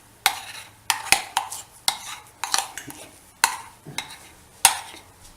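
A spoon scraping and knocking against the rim of a bowl about ten times at an uneven pace, as thick besan dhokla batter is scraped out into a container.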